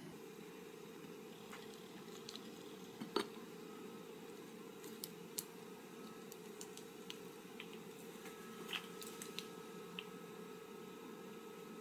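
Faint light clicks and taps of tongs against a ceramic plate as cooked spaghetti is served onto it, the sharpest about three seconds in, over a faint steady hum.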